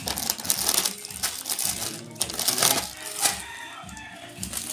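Plastic grocery packets crinkling and rustling as they are handled and lifted out of a cardboard box, in short irregular crackles with light bumps against the cardboard.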